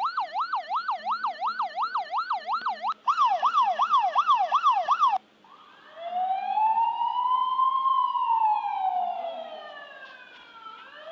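Electronic siren tones in sequence: a fast yelp warbling about four times a second, then a faster yelp about five times a second. After a short pause comes one slow wail that rises and then falls away, and a new wail starts rising right at the end.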